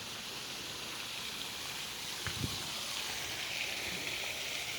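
Steady outdoor background hiss, with one faint knock about two and a half seconds in.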